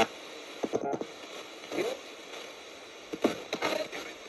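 Ghost-box radio sweeping through stations: a steady hiss of static broken by short, clipped fragments of broadcast sound, about four of them. One fragment near the end is taken by the ghost hunter as a spirit answering 'yes, I do too'.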